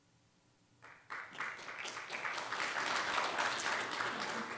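Audience applauding, starting about a second in, building up and then beginning to fade near the end.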